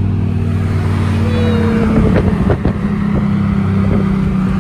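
A car engine drones steadily under way, heard from inside the cabin, with a few sharp cracks about two seconds in.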